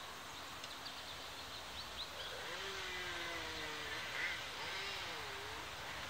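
Backyard outdoor ambience: a steady hiss of background noise with a quick run of small bird chirps in the first two seconds, then a few low, drawn-out gliding sounds in the second half.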